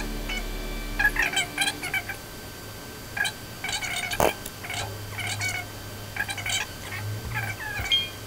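Short, wavering, high-pitched calls repeating about once a second, laid over background music with a low, steady bass note. A single sharp click comes about four seconds in.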